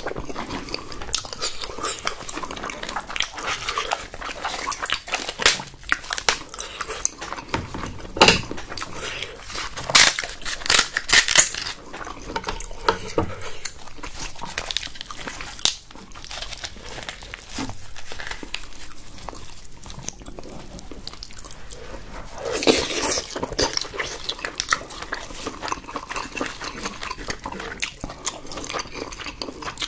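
Wet chewing of tteokbokki rice cakes, then the cracking and tearing of king crab legs as the shell is broken open and the meat pulled out.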